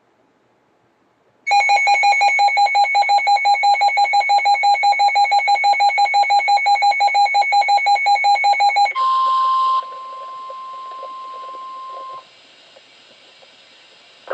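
Weather radio alert: a loud electronic alarm beeping rapidly, several beeps a second, for about seven seconds. A short burst of static follows, then the steady 1050 Hz NOAA Weather Radio warning tone for about three seconds, which gives way to faint radio hiss.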